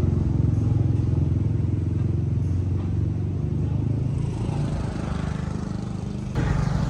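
A motorcycle engine running close by, a low pulsing note that fades over the first few seconds. Near the end the sound jumps abruptly to louder, busier noise.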